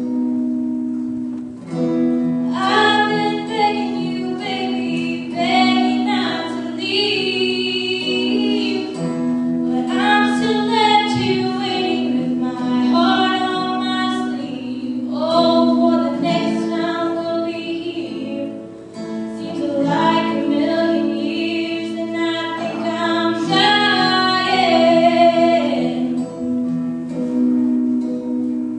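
A young woman singing solo into a handheld microphone over acoustic guitar accompaniment, in several long phrases with short breaks between them. The guitar plays alone for the first two seconds and again for the last few.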